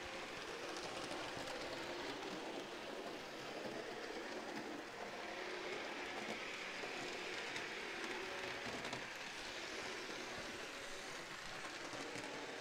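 HO scale Thomas and Percy model locomotives, each pulling a boxcar, running along the track: a steady, quiet rolling noise of small electric motors and metal wheels on rail, with faint scattered clicks.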